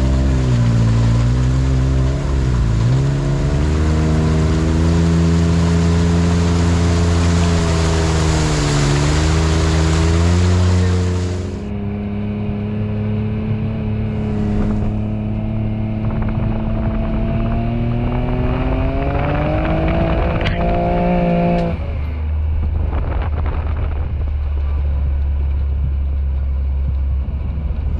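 An off-road vehicle's engine running under changing throttle, with a loud rushing noise over it that cuts off abruptly about eleven seconds in. The engine then climbs in pitch around twenty seconds in, before the sound changes abruptly to a steady low drone.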